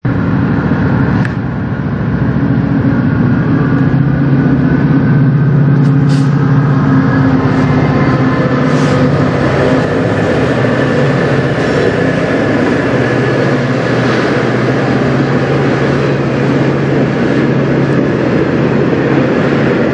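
Diesel-hauled freight train passing close by. The locomotive's engine runs with a steady low drone, then the autorack cars roll past with a rising rumble and clatter of wheels on the rails, with a few sharp clicks in the first nine seconds.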